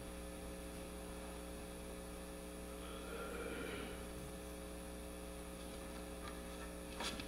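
Steady low electrical mains hum, with a short click near the end.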